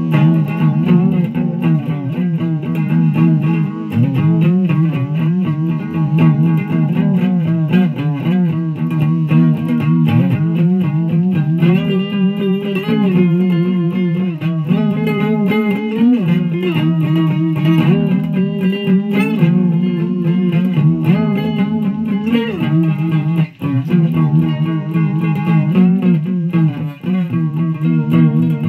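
Electric guitar played through a Fuzz Face fuzz pedal. Held notes and chords change every second or so over a steady low note, with two brief drop-outs near the end.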